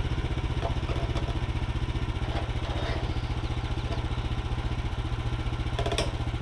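Portable bandsaw sawmill's engine idling steadily with an even pulse, the blade not cutting. A single sharp knock sounds near the end, about six seconds in.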